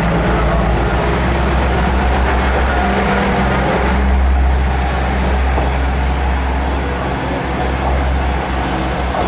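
KiHa 100 diesel railcar's engine running under power as the train pulls out and passes. It makes a steady low drone that grows louder about four seconds in and then eases off as the train moves away.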